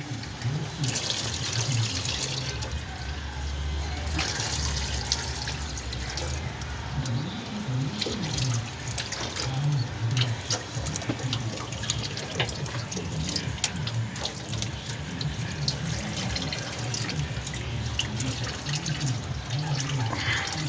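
Engine oil draining from a Ford F-250 Super Duty's oil pan into a drain pan: a steady splashing stream, with scattered clicks and knocks throughout.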